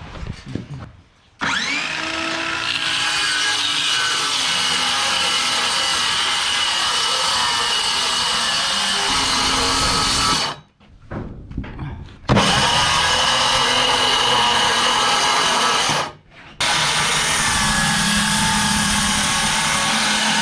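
Electric circular saw spinning up and cutting through a wooden board. It stops about halfway through, starts again, and cuts out once more for a moment before running on.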